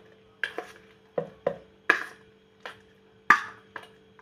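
A steel spoon clinking and scraping against a stainless steel bowl and mixer jar as wet ground paste is scraped out, about eight irregular metallic clicks with a short ring.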